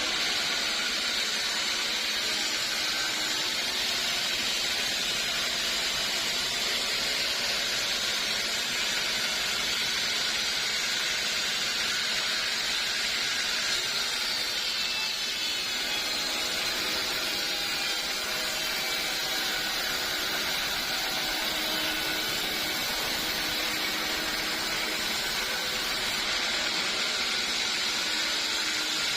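Sawmill saw running steadily through old teak wood, an even high-pitched hiss with no break.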